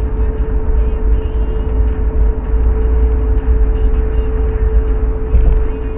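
Car driving at highway speed, heard from inside the cabin: a steady low rumble of road and engine noise with a constant hum running through it.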